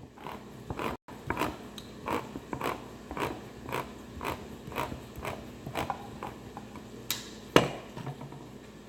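Kitchen clicks and knocks in a fairly even run of about two a second, with a louder knock near the end.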